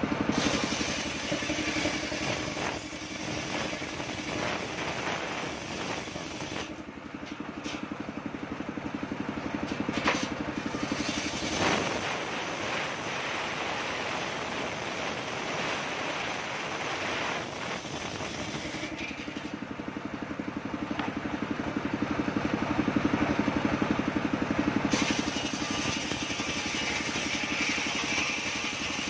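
Engine-driven homemade circular sawmill running, its large blade ripping lengthwise through a coconut-palm log. The saw's steady drone is mixed with the cutting noise of the blade in the wood, with a couple of sharp knocks in the middle and the cut growing louder for a few seconds about two-thirds of the way through.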